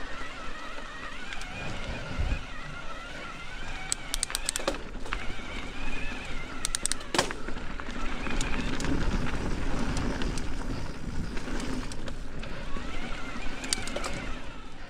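Mountain bike riding a dirt trail: a steady rumble of tyres and wind, with sharp clicks and rattles of the bike over rough ground, clustered about four to five seconds in, around seven seconds and near the end. A faint wavering whine runs underneath.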